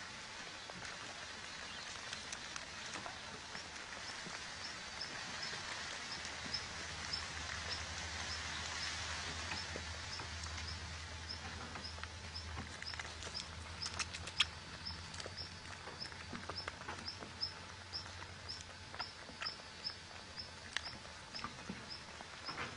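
Outdoor ambience: a steady hiss with scattered soft rustles and patter, as rabbit kits shift about in loose soil under their mother. From a few seconds in, a short high chirp, likely a bird or insect, repeats about twice a second.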